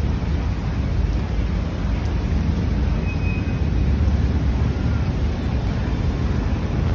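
Busy city street ambience on a wet day: a steady low rumble of traffic noise, with a brief faint high squeal about three seconds in.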